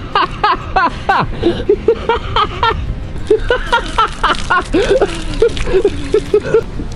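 Milk gushing from a plastic gallon jug over a face and splashing, with rapid short sputtering cries and gasps, about three or four a second, from a mouth burning from pepper extract.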